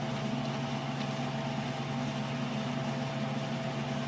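Steady low hum made of several constant tones, with an even hiss over it: the background noise of the recording.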